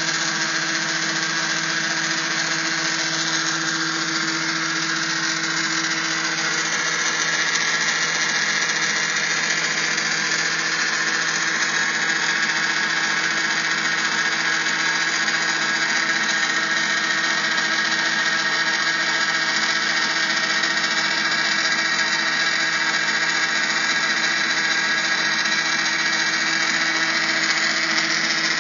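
Electric motor driving a bronze pump through a shaft coupling, running steadily with a constant hum and whine, over the hiss of water spraying from nozzles inside a plastic-wrapped enclosure.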